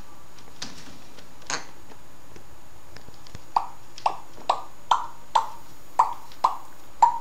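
African grey parrot making a repeated popping click, each a sharp click with a short dipping tone, like a water-drop plop. One comes about a second and a half in, then from about halfway through a steady run of eight, about two a second.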